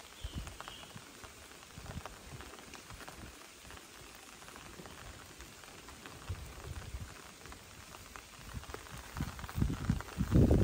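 Light rain falling on a river's surface and the waterside plants, a steady hiss of scattered drops. Louder low thumps and rumbles come in near the end.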